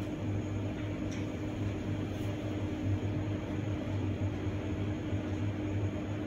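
Room tone: a steady low hum with an even hiss underneath, without change.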